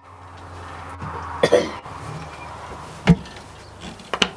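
A man coughs once in the smoke about a second and a half in. Just after three seconds a sharp knock, then a couple of clicks near the end, come as the wooden smoker cabinet's door is pushed shut and latched, all over a low steady hum.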